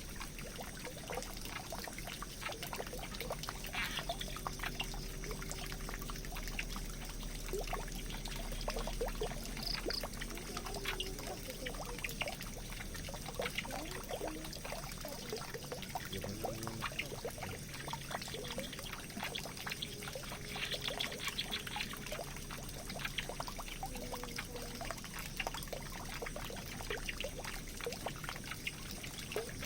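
Water pouring and trickling into a drain, a steady run of water with many small drips and splashes.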